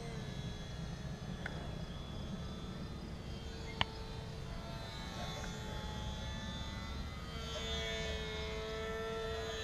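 Small electric RC plane motor and propeller running steadily, a faint high whine that wavers a little in pitch over a low wind rumble. A single short click about four seconds in.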